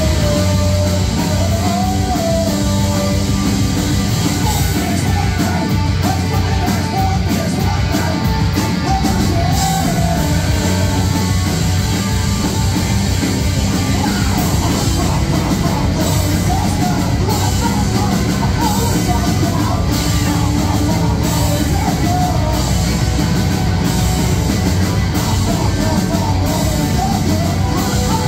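Live rock band playing a loud, steady song: electric guitars, bass and drums, with a voice singing and yelling over them.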